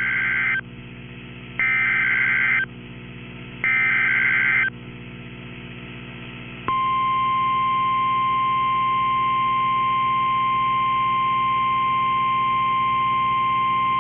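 Emergency Alert System tornado warning received on a NOAA Weather Radio. First comes the end of the SAME digital header: three short, harsh data bursts about two seconds apart. After a pause of faint radio hum, the steady single-pitch 1050 Hz warning alarm tone begins about seven seconds in and holds.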